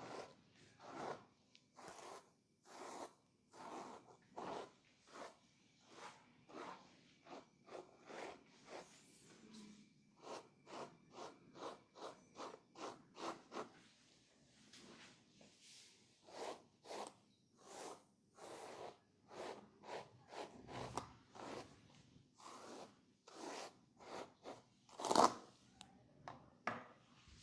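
Close rubbing and scratching strokes of hands working over hair and skin in a head-and-neck massage. The strokes come about once a second, quicken to about three a second in the middle, and one stroke near the end is louder.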